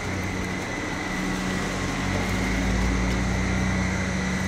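A car driving, heard from inside: steady engine and road noise with a constant low hum, the low rumble swelling a little about halfway through.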